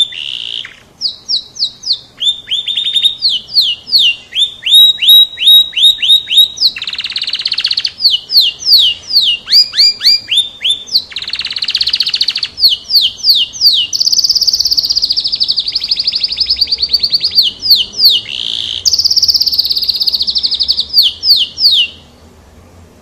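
Domestic canary (kenari F1) singing loudly: phrases of rapid, repeated down-sweeping notes, with buzzy stretches and a long rolling trill around the middle. The song stops about a second before the end.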